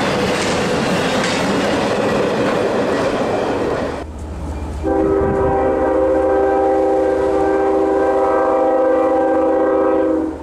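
The tail end of an intermodal freight train rolls past, steel wheels clattering on the rails, and the sound cuts off about four seconds in as the last car clears. About a second later a locomotive air horn sounds one long, steady blast, a chord of several notes, stopping just before the end.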